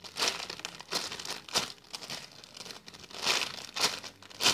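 Clear plastic bag crinkling in irregular bursts as hands squeeze and turn it, with a squishy toy inside.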